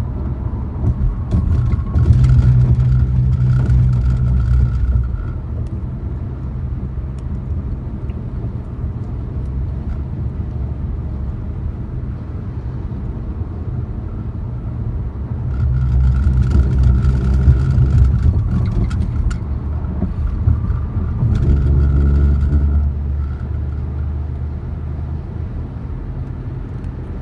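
Vehicle driving on an interstate highway: a steady low rumble of road and engine noise that swells louder three times, briefly near the start and twice past the middle.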